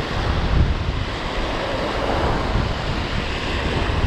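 Ocean surf washing and breaking over the rocks at the shoreline, with wind buffeting the microphone.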